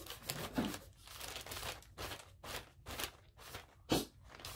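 Irregular rubbing and scraping strokes of art materials being worked over a paper page, with a sharper knock about four seconds in.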